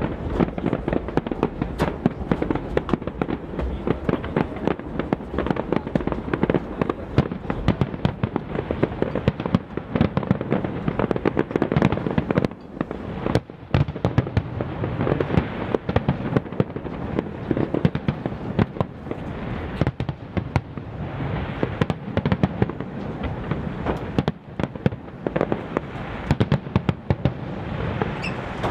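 Fireworks display: a dense, continuous barrage of bangs and crackling aerial shell bursts, with a brief lull about halfway through.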